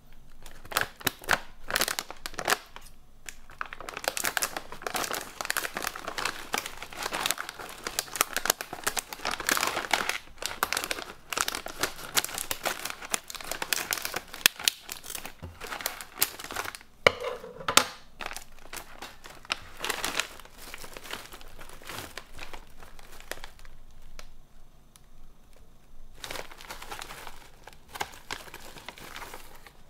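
Plastic snack packaging crinkling as it is handled and crumpled: dense crackling, with a short pause about three seconds in and a longer lull near the end.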